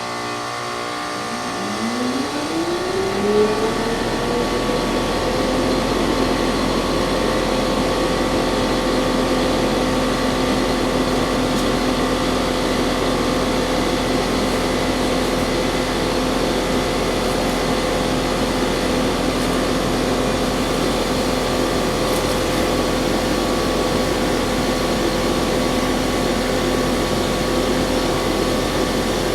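Trane XL16 heat pump starting up in heating mode: a motor whine rises over a few seconds about two seconds in, then the unit runs with a steady hum and rush of air. The unit is short cycling, starting and stopping too often.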